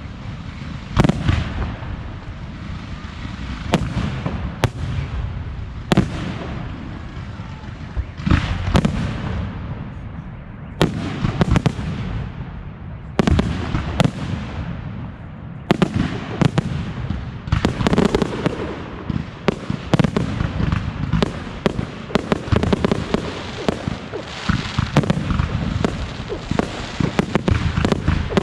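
Fireworks display: aerial shells bursting in an irregular series of booms and cracks over a steady low rumble, thickening into near-continuous rapid bursts in the second half.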